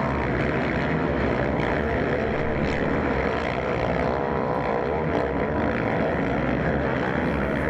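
Motocross bike engines running hard on the track, their pitch rising and falling as the riders go on and off the throttle through the corners and jumps.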